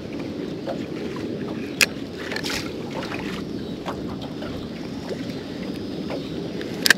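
Steady wash of wind and choppy water around a small fishing boat, with two sharp clicks from the rod and spinning reel being handled, about two seconds in and again near the end.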